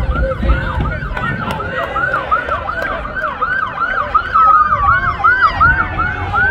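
Emergency vehicle siren in a fast yelp, rising and falling about three to four times a second. About four seconds in, a second siren's slower wail glides in under it.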